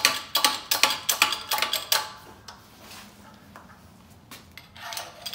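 Rapid metallic clicking, about two or three clicks a second, from the pump handle of a 12-ton Harbor Freight hydraulic press being worked to lower the ram onto a louver punch; it stops for a couple of seconds midway and starts again near the end.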